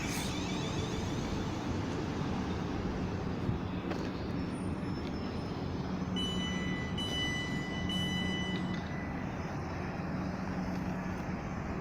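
Electric multiple-unit train running through the station: a steady rumble with a low hum, and a high-pitched whine in three short stretches about six to nine seconds in.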